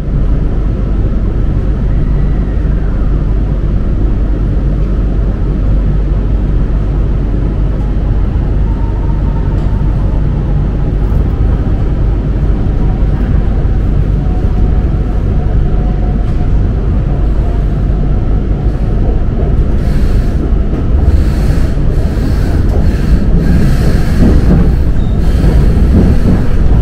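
Hanoi Metro Line 2A train pulling out of a station and running along the elevated track, heard from inside the car: a steady low rumble with a faint whine. Clatter and knocks grow more frequent and louder in the last few seconds as the train gathers speed.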